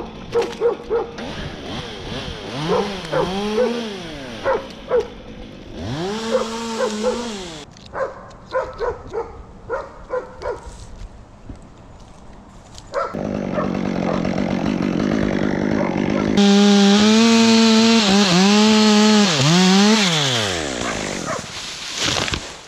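Top-handle chainsaw revving up and down in short bursts, with a run of sharp clicks midway. Later it runs loud and steady, cutting through pine wood, its pitch sagging under the load before it drops off near the end.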